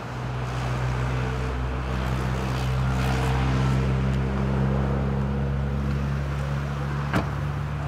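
A car engine idling: a steady low hum. A single sharp click comes about seven seconds in.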